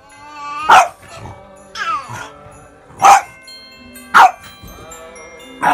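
A dog barking four times, single sharp barks spaced irregularly, over background music with held notes.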